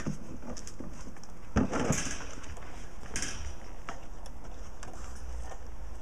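Dogs play-wrestling at a person's feet: brief scuffling noises, loudest about one and a half seconds in and again about three seconds in, with a few faint clicks.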